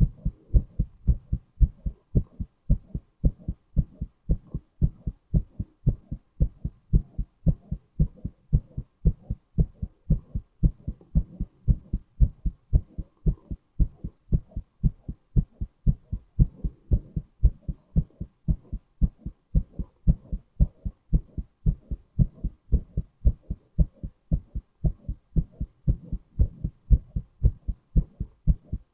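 A man's heartbeat, recorded close up: steady, evenly spaced low thuds that keep a regular rhythm throughout.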